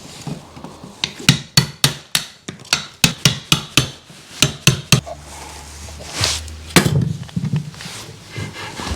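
Hand hammer blows, about a dozen sharp strikes at roughly three a second that stop about five seconds in, followed by a few softer knocks.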